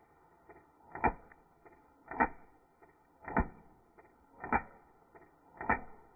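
Airsoft shots slowed down in slow motion: five deep, drawn-out knocks about one a second, with fainter clicks between them.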